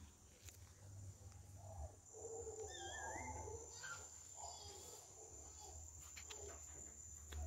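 Faint outdoor ambience: a steady high-pitched insect trill sets in about a second in, and a bird gives a few short warbling calls around the middle.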